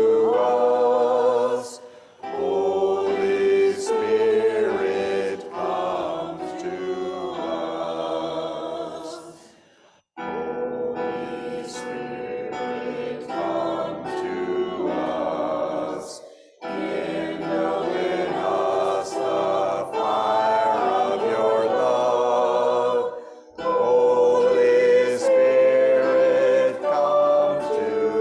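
Choir singing a slow hymn in harmony, a sung prayer to the Holy Spirit, phrase by phrase with short breaks between phrases.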